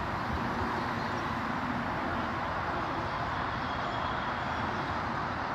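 Steady rumble of a diesel train at the station, even and unchanging throughout.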